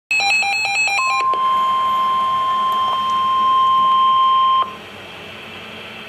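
Reecom weather alert radio sounding an alert: about a second of rapid electronic chirping, then a steady single-pitch alarm tone, the NOAA Weather Radio 1050 Hz warning tone that comes before a warning message. The tone runs about three and a half seconds and cuts off suddenly, leaving faint hiss.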